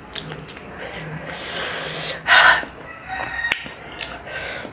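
Close-miked eating sounds from a person eating grilled apple snails: soft mouth noises, then a loud, short sucking sound from the mouth a little past halfway, and a sharp click near the end.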